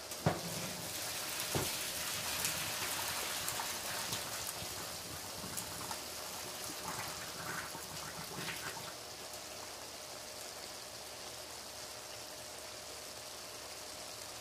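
Hot water from a pot of boiled potatoes pouring through a clip-on silicone strainer into the sink, with a couple of knocks of the pot near the start. The pour is strongest in the first few seconds and thins after about the halfway point to a faint, steady trickle and hiss.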